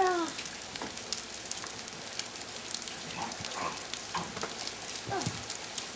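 Steady rain pattering, with many small sharp drop ticks throughout. A young child makes a short falling squeal at the very start and a few faint vocal sounds a few seconds later.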